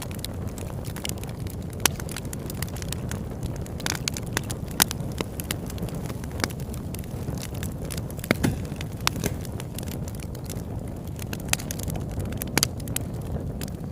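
Campfire burning with a steady low rush and frequent sharp crackles and pops from the burning wood, a few of them louder.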